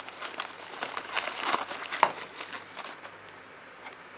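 Thin plastic wrapping bag crinkling and crackling as a camera is pulled out of it, busiest and loudest about two seconds in, then dying down to a few faint ticks.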